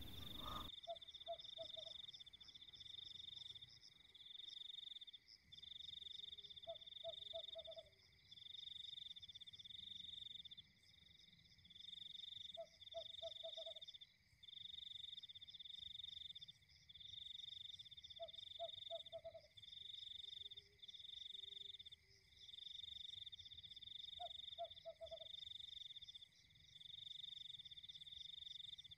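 Faint night chorus: a frog croaks in short rapid-pulsed bursts about every six seconds, over insects trilling in long pulses about a second and a half apart and a steady high tone.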